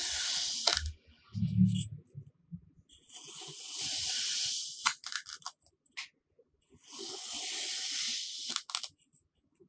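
A stainless-steel kitchen knife cuts down through a block of kinetic sand in three strokes. Each is a gritty, crunchy hiss of about two seconds, ending in a few sharp clicks as the cut finishes. A soft low thump comes about a second and a half in.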